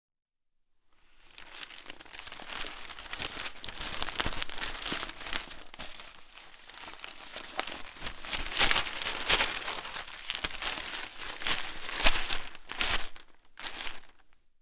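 Newspaper pages being turned and handled: a dense run of paper rustling and crackling with sharp snaps, starting about a second in. The loudest snap comes near the end, just before a brief pause and a last rustle.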